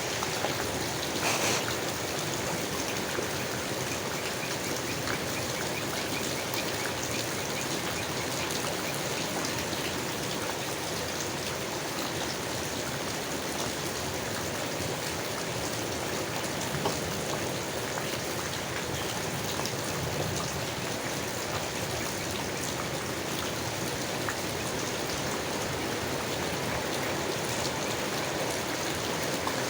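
Steady rain falling on leaves: a dense, even hiss of many small drop hits. One louder drop hit comes about a second in.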